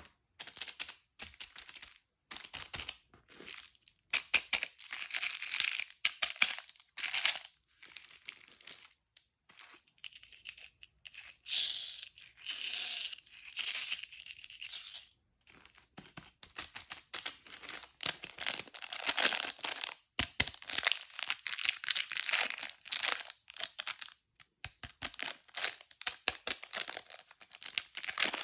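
Plastic candy wrappers being crinkled and torn open by hand, in crackling bursts broken by short pauses, with a longer stretch of tearing near the middle.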